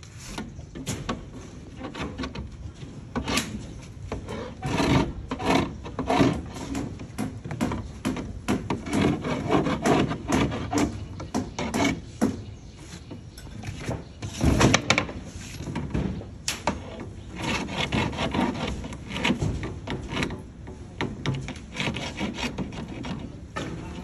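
Wooden strips being handled and laid on plywood formwork: irregular knocks, taps and scraping rubs of wood on wood.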